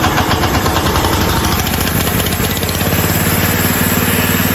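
Small gasoline engine of a Hudson portable sawmill running just after being pull-started. It runs unevenly at first, then settles into a steady, even idle about three seconds in.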